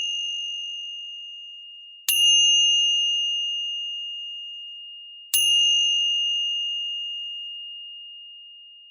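Meditation bell ringing, already sounding as it opens, then struck twice more, about two seconds in and again a little past five seconds. Each strike rings out in one clear high tone that slowly fades, signalling the end of the meditation.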